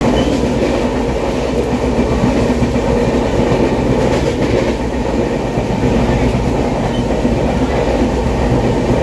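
Passenger train running at speed, heard from inside a carriage: a steady rumble of wheels on the rails with some clatter.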